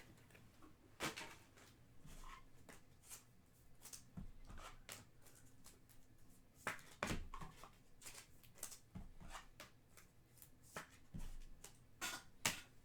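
Faint, irregular rustling and light clicks of trading cards being handled and set down, a few louder ones about a second in, around seven seconds and near the end.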